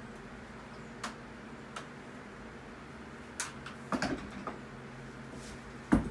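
Scattered light knocks and clicks of wood and tools being handled on a wooden table frame, a small cluster in the middle and one sharper, louder knock near the end, over a steady low hum.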